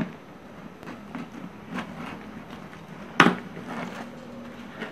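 A hand stapler snapping shut once, a little over three seconds in, fastening tinsel garland to a paper cone. A few faint ticks and rustles of the garland being handled come before it.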